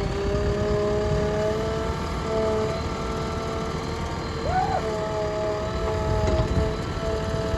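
Heavy diesel machinery running, a low rumble with a steady whine over it; the whine briefly jumps up in pitch and drops back about four and a half seconds in.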